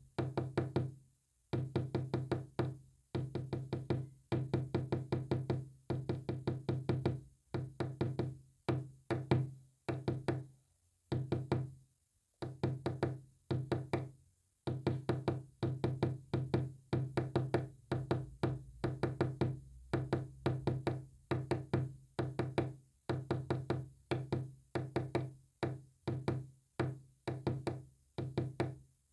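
Morse code-style signalling in rapid runs of sharp, pitched knocks that decay quickly, with short gaps between runs and a longer pause near the middle.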